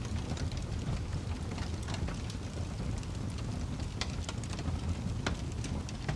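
Wood fire burning, with a steady low rumble and frequent sharp crackles and pops, the loudest about four and five seconds in.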